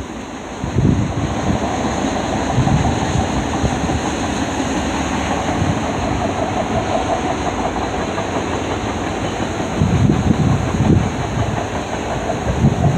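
Freight train cars rolling past, a steady noise of steel wheels on the rails. Gusts of wind buffet the microphone, hardest about ten seconds in.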